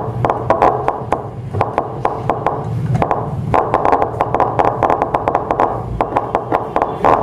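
Repaired loudspeaker driver crackling and popping as a battery is held to its terminals, testing the rebuilt voice coil and cone. It comes in several bursts of about a second each, full of sharp clicks.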